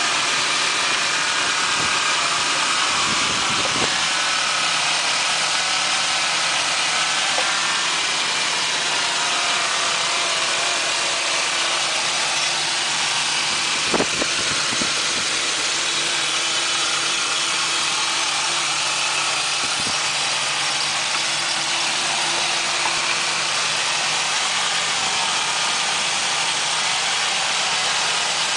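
Ford 4.0L OHV V6 idling steadily, which the owner suspects has a vacuum leak at the upper intake plenum gasket and is running lean on both banks. There is one sharp click about 14 seconds in.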